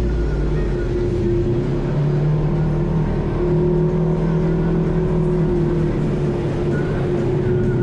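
Engine of a Polaris RZR High Lifter side-by-side running steadily under way, heard from inside the cab as it drives through shallow muddy water.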